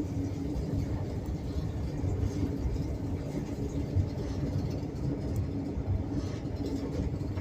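Passenger train running along the track, heard from inside a compartment car: a steady low rumble of wheels on rails with a faint constant hum and a few light knocks.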